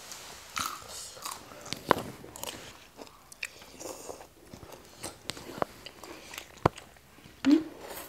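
Close-miked mouth sounds of biting and chewing crisp raw long beans: irregular sharp crunches and clicks scattered throughout.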